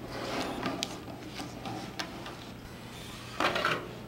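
Base ten rods being laid out by hand on a sheet of paper on a tabletop: a few separate light clicks and taps, then a louder spell of handling and rustling about three and a half seconds in.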